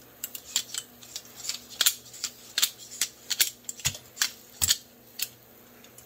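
Cold Steel FGX balisong, an all-plastic Griv-Ex butterfly knife, being flipped: a quick, irregular run of sharp clicks and clacks as the handles swing and knock together. The clicks stop about a second before the end.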